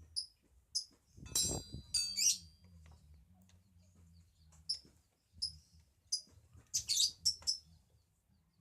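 A small bird chirps repeatedly in short, high notes. A ringing metallic clink comes about a second and a half in.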